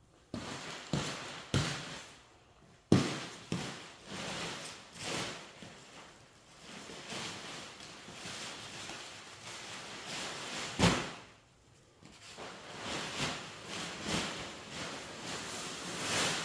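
A series of knocks and clunks from things being handled and set down, the loudest about three seconds in and another just before eleven seconds, with uneven noise between.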